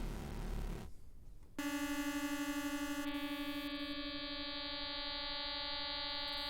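Arturia Synclavier V software synthesizer playing sustained notes with its bit depth turned down to about 6 bits, which adds harsh quantization distortion. A low, gritty note ends about a second in. A higher held tone with a bright stack of overtones and a slight pulsing starts about a second and a half in, and its highest overtones drop away a couple of seconds later.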